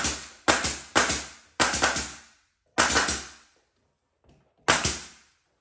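Nail gun firing nails through crown molding into the wall: about five sharp shots at uneven spacing, with a longer gap before the last one near the end.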